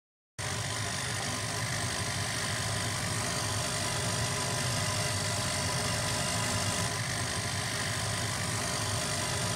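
Laser cutter running while it cuts dory model panels out of cardboard: a steady mechanical hum and whir that starts abruptly about half a second in.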